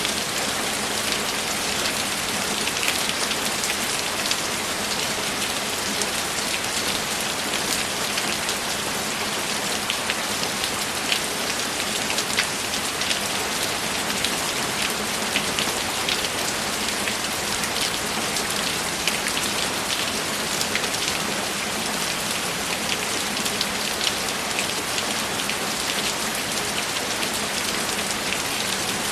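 Steady rain, an even hiss with many small drop hits.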